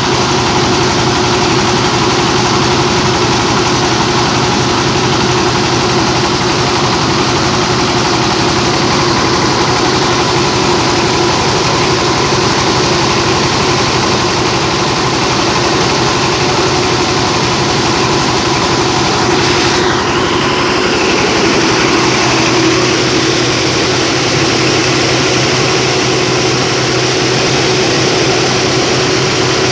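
Rice milling machine driven by a 24 hp Dongfeng single-cylinder diesel engine, running steadily as it mills paddy into rice.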